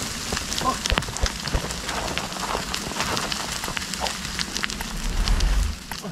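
Crunching and crackling of loose soil, dry leaves and twigs under feet and hands as a person scrambles up a steep dirt bank through brush, with many sharp snaps. A low rumble swells briefly near the end.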